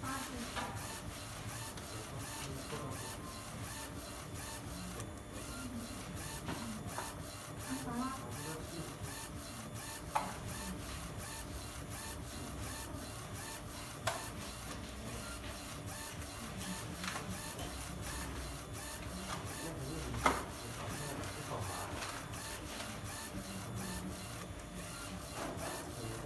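UV inkjet printer running a print job: the print-head carriage shuttles back and forth across the bed, its motor and drive making a swell of noise on each pass, in a steady rhythm of about one pass every two-thirds of a second.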